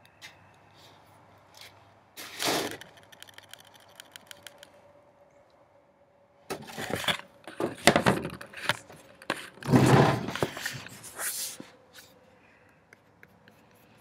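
Handling noise close to the microphone: rustling and scraping with scattered clicks, in one short burst and then a longer spell of several seconds.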